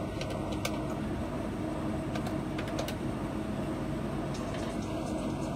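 Steady mechanical hum with a hiss over it and a few faint clicks.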